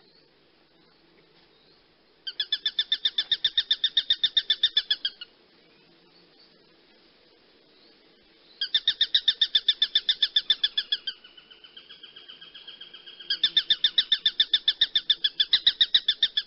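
Hawk calling in three bouts of rapid repeated high notes, about ten a second, each bout lasting around three seconds. A softer, thinner trill runs on between the second and third bouts.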